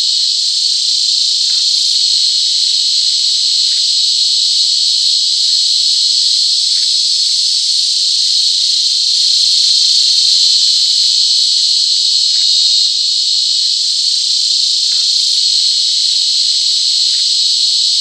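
Cicadas singing: a continuous, loud, high-pitched shrill buzz that holds steady without a break.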